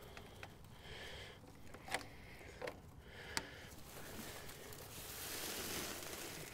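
Faint handling sounds of a jumper-cable clamp being worked onto an engine's starter wiring: a few light clicks of metal on metal, then a soft rustle near the end.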